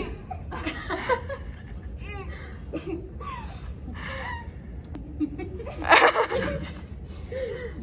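Several teenage girls laughing and giggling in short bursts, with a few broken words, and one loud sudden burst about six seconds in, over a steady low hum.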